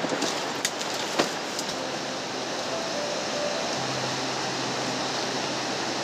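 Steady rushing of a mountain river, with a sharp click about a second in.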